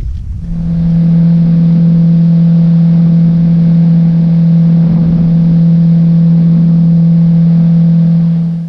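Boat's outboard motor running at a steady high speed with the boat under way, over a rush of wind and water. It comes in about half a second in, holds one steady pitch, and cuts off suddenly at the end.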